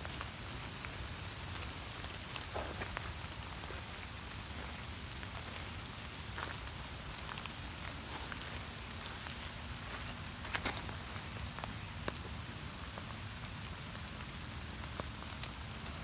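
Rain falling steadily, with scattered sharper taps of single drops.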